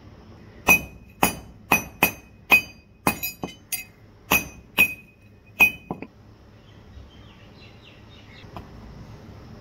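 A farrier's hammer striking a steel horseshoe about a dozen times in quick, uneven succession, each blow ringing like metal, stopping about six seconds in. This is the shoe being hammered to shape so that it fits the trimmed hoof.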